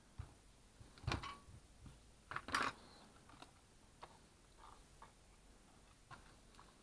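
Clicks and knocks of hard plastic and metal parts being handled: a circular saw's armature, with its cooling fan, being worked loose and drawn out of its plastic motor housing. Two louder knocks come about a second in and a cluster a second or so later, with lighter ticks after.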